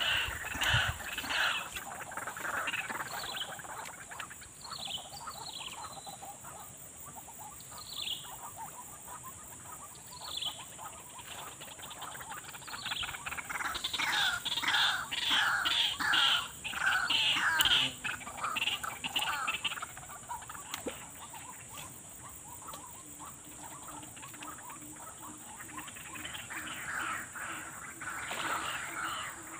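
Wild birds and frogs calling: a run of short falling chirps in the first ten seconds, then a burst of rapid repeated calls near the middle and another near the end, over a steady high whine.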